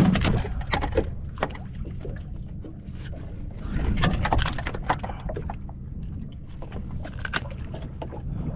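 A freshly landed ribbonfish being handled and unhooked at the boat's side: scattered sharp clicks and knocks, with a busier, louder stretch about four seconds in, over a steady low rumble.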